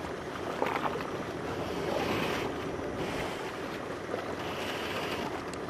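A coast guard patrol boat running fast across the water, its engines and wake heard as a steady rush mixed with sea wash and wind on the microphone.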